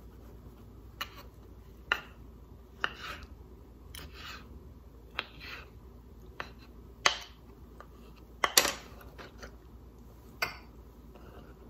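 Kitchen knife cutting a peeled yellow kiwi on a wooden cutting board: irregular sharp taps of the blade on the board mixed with short slicing scrapes, the loudest knocks coming about seven and eight and a half seconds in.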